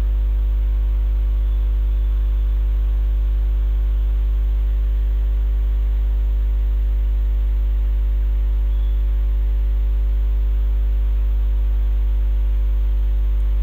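Steady low electrical hum with a row of steady overtones above it, unchanging throughout; no other sound stands out.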